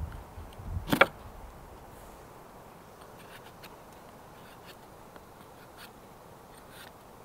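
A knife cutting through a thin sapling, which snaps off with one sharp crack about a second in, followed by faint, scattered scraping strokes of the blade on the wood.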